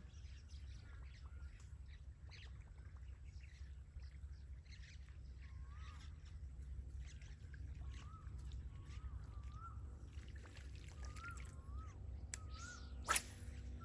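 A bird calling outdoors with short, wavering whistled notes repeated about once a second, starting around five seconds in, over a steady low rumble. Faint scattered clicks run through it, with one sharp click near the end.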